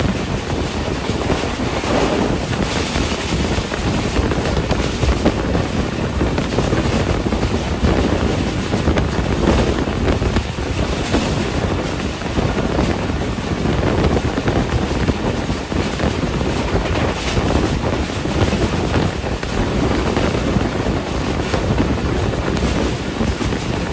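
Passenger train running at speed, heard from an open coach window: a steady, loud rush of wind buffeting the microphone mixed with the rumble of the wheels on the rails.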